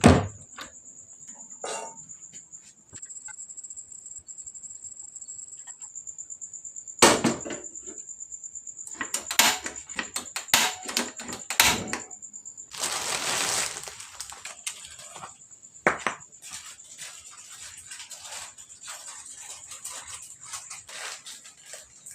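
Kitchen handling sounds: dishes and utensils knocked and set down in scattered clicks and clatters, with a short rush of noise a little past halfway, over a steady high-pitched whine.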